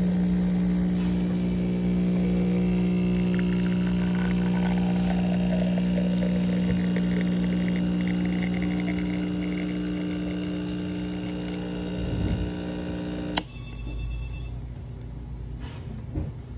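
Espresso machine's pump humming steadily while a shot pours from the group head into a steel pitcher, cutting off suddenly about 13 seconds in. A few faint clicks follow.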